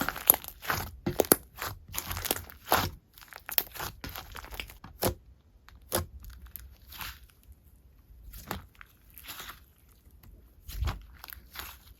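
Slime being squished and pressed by hand, making clicking and popping sounds. The clicks come thick and fast for about the first three seconds, then thin out to scattered single pops.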